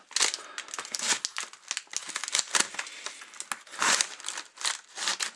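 Packaging crinkling and tearing in a rapid, irregular string of crackles as a phone's glued retail box is pulled open by hand.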